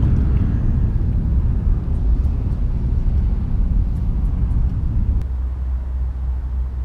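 Wind buffeting an outdoor camera microphone: a loud, gusty low rumble that eases a little about five seconds in.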